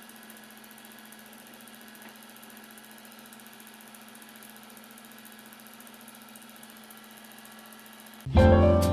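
A faint, steady mechanical hum like an idling engine. About eight seconds in, loud piano music starts suddenly.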